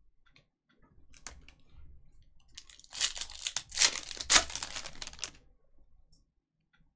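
Foil wrapper of a Topps Chrome trading-card pack being torn open and crinkled: a dense crackling tear lasting about two and a half seconds, loudest near its end, after a few light taps as the pack is picked up.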